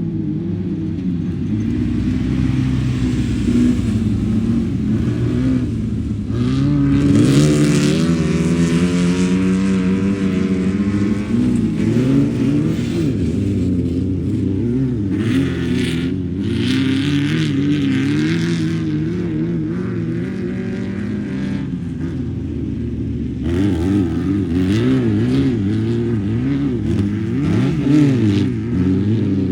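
Off-road race cars with air-cooled Volkswagen engines running hard, several engine notes overlapping. One engine revs up sharply about six seconds in, and the pitch keeps rising and falling with throttle and gear changes.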